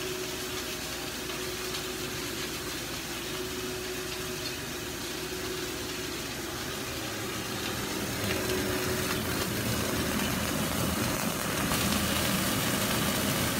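Chicken thigh steak sizzling in a frying pan over a steady hum, getting a little louder about eight seconds in and again near the end.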